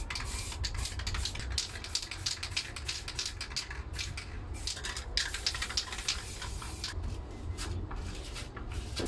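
Aerosol spray paint cans hissing in many quick, irregular short bursts as paint is sprayed onto a canvas, with a steady low hum underneath.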